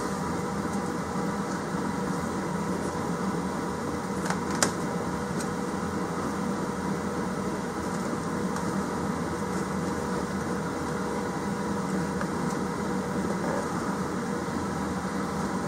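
Steady mechanical hum, with a couple of faint clicks about four seconds in.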